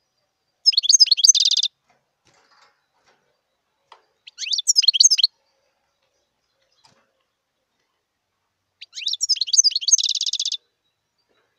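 European goldfinch singing three short twittering song phrases a few seconds apart, the first and last ending in a fast, evenly pulsed trill.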